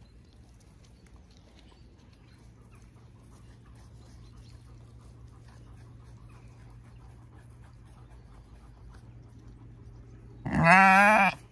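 A Zwartbles sheep bleating once near the end, a loud baa of about a second with a wavering pitch, over a faint low steady background.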